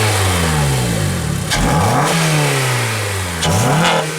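Acura TSX's K24 four-cylinder engine, fitted with an HPS cold air intake, being revved in short throttle blips. The revs fall away at the start, then two more blips rise quickly and sink back, about a second and a half in and near the end.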